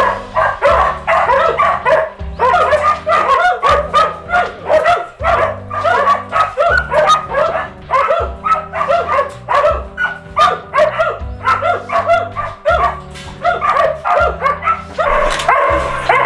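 Several hunting dogs barking and yipping in rapid, overlapping barks, with background music underneath.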